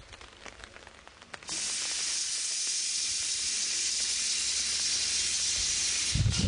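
Steam locomotive's cylinder drain cocks blowing off steam: a loud steady hiss that starts suddenly about a second and a half in and cuts off near the end, where low thumps from the engine follow.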